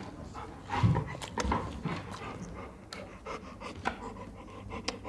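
Rottweiler panting with rapid breaths, among small clicks and rustles, with a low thump a little under a second in.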